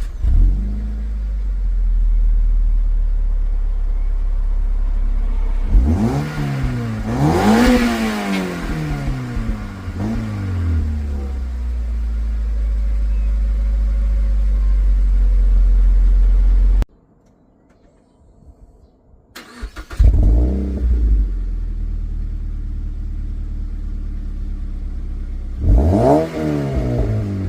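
Mazda MX-5 NC's four-cylinder engine idling through an aftermarket exhaust after a warm start, revved twice in quick rising-and-falling blips. About 17 seconds in it cuts off; after a short silence the same car starts again with the other muffler (Simons or Cobra road muffler), idles, and is revved again near the end.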